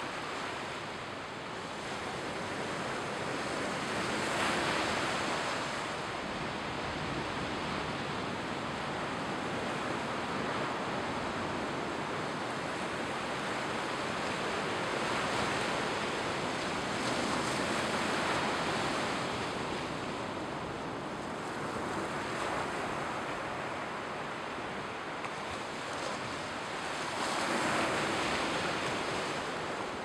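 Mediterranean surf washing onto a sandy shore: a continuous rush of water that swells louder as larger waves break, about every ten to twelve seconds.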